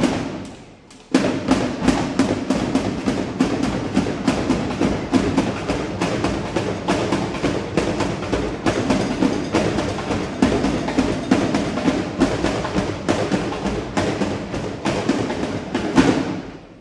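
A drill team's drum line playing a fast, dense cadence of drum strikes. It breaks off briefly about a second in, then picks up again and cuts off near the end.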